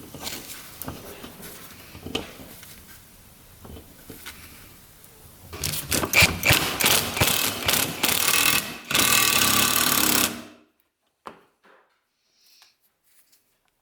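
Faint handling clatter, then a power driver running in rapid rattling spurts for about five seconds as it drives self-tapping screws into plastic, stopping abruptly about ten and a half seconds in.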